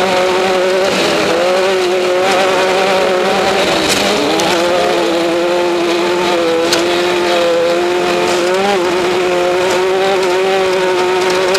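Off-road race vehicle's engine running hard at a steady high pitch, with a brief dip about four seconds in and a few faint ticks.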